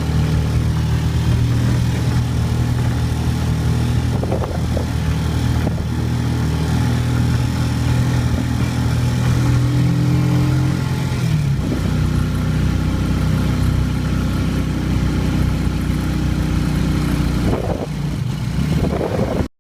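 A motor vehicle's engine running steadily, its note shifting lower about halfway through.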